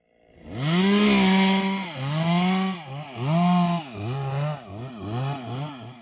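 Stihl two-stroke chainsaw revved in a run of throttle bursts. The first and longest is held high, then about five shorter rises and falls in pitch follow, coming quicker toward the end.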